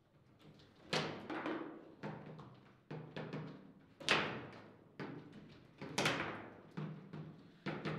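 Table football play: the ball being struck by the plastic figures on the rods and knocking against the table, sharp knocks about once a second, each ringing briefly in the table's body.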